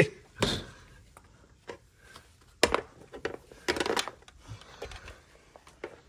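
Handling noise: scattered knocks, clicks and rustles of things being moved about, with two louder scraping sounds about two and a half and four seconds in.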